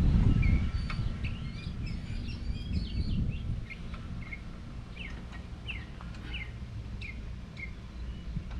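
Small birds chirping: a jumble of short quick chirps in the first few seconds, then a run of short, falling chirps repeated about once or twice a second. A steady low rumble lies underneath, louder in the first second or so.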